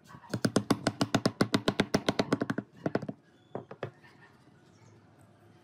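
A wooden block knocked rapidly against the side of a wooden frame, about ten sharp wood-on-wood knocks a second for two and a half seconds, then a few slower knocks.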